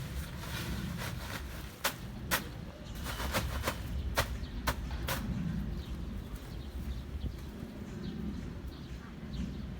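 Month-old chicks cheeping faintly, with a run of about seven sharp taps or clicks in the first half.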